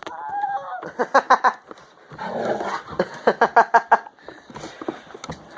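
Pet dog making play noises while she has Nerf darts in her mouth: a wavering whine at the start, then bursts of quick, rhythmic pulsing sounds.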